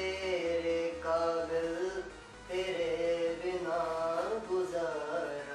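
A young man singing solo without accompaniment, holding long drawn-out notes in two phrases with a short breath about two seconds in.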